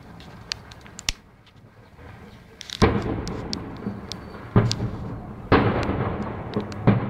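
A series of explosions from a burning warehouse fire. Two sharp cracks come first, then four heavy blasts a second or two apart, each trailing off in a long rolling rumble, with smaller crackles and pops in between.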